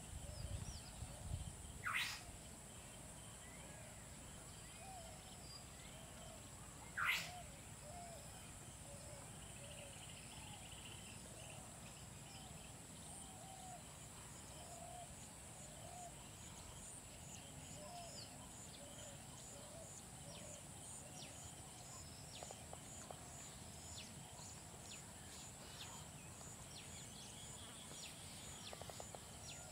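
Faint outdoor ambience of small birds chirping over a steady high insect drone, with two short, sharp sweeping calls about two and seven seconds in.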